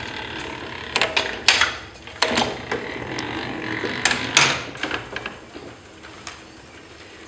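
Cylinder letterpress proof press pulling a proof: sharp metal clanks and clicks from the press mechanism, then a rolling rumble as the cylinder and inking rollers travel over the type bed, ending in a loud clank about four and a half seconds in. The last couple of seconds are quieter.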